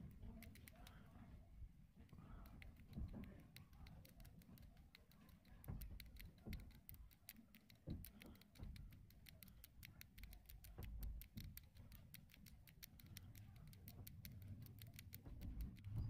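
Near silence with faint handling noise from fingers working on an opened smartphone's frame and button strip: low rubbing and bumps, and a run of many soft, quick clicks.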